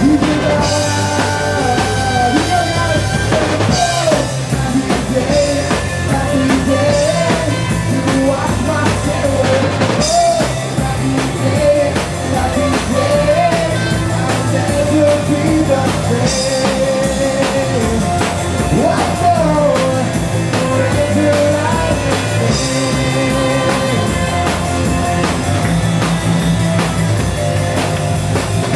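Live rock band playing: a drum kit keeping a steady beat under bass and a wavering lead melody line, with no words sung.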